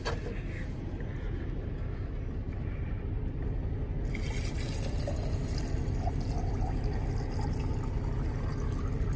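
Water pouring from a plastic gallon jug into an insulated bottle packed with ice, beginning about four seconds in, over a steady low rumble.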